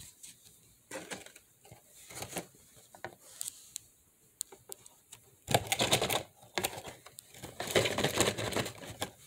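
Cardboard Happy Meal box handled close to the microphone: irregular clicks and taps, with two louder stretches of rustling and crackling, about halfway through and near the end.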